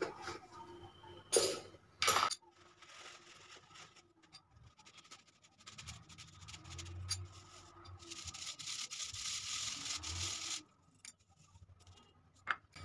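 Dry cake ingredients (flour, powdered sugar, baking soda and baking powder) being rubbed by hand through a plastic mesh sieve: a soft, steady scratchy rustle that grows brighter and stops about two seconds before the end. A few sharp taps come in the first couple of seconds.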